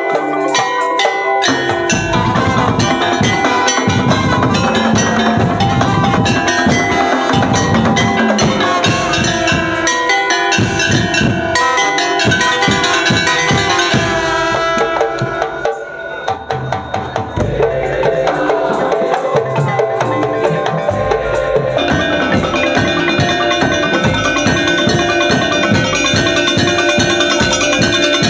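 Madurese daul (tongtong) percussion ensemble playing a rhythmic piece: tuned mallet percussion and wood-block-like knocks over steady drum strokes. The low drums drop out briefly about halfway through, then come back in.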